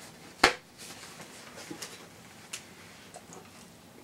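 A single sharp click about half a second in, then faint scattered ticks and rustles as a small food item is handled and unwrapped.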